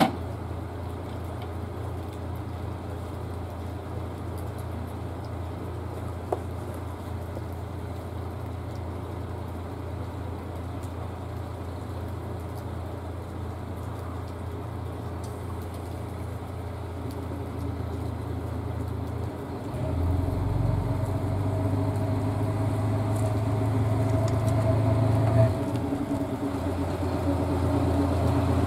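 KiHa 54 diesel railcar idling steadily with a low engine hum. About twenty seconds in the diesel engine throttles up as the railcar pulls away from the platform, and the engine note becomes clearly louder.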